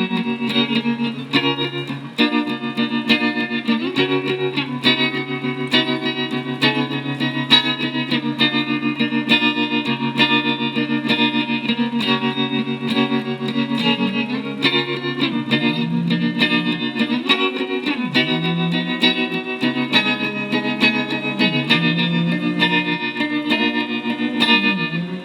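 Instrumental music: guitar processed with chorus and distortion over a bass line, with no singing.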